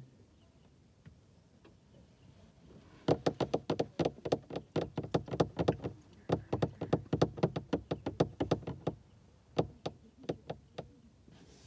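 A run of sharp, close tapping or knocking, about three to four taps a second, starting about three seconds in with a couple of short breaks and stopping near the end.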